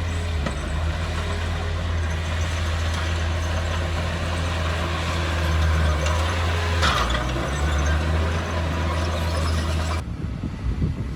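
Heavy diesel engine of earthmoving equipment running steadily at work, with a short sharp burst of noise about seven seconds in. About ten seconds in the engine sound cuts off abruptly, leaving quieter wind noise.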